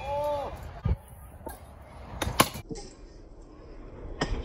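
Stunt scooter rolling on concrete, with sharp knocks of the deck and wheels hitting the concrete about a second in, loudest about two and a half seconds in, and again near the end. A brief shout at the very start.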